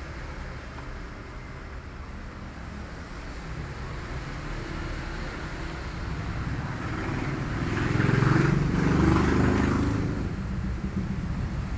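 Motor vehicle running past with a low engine rumble that builds, is loudest about eight to nine seconds in, then fades.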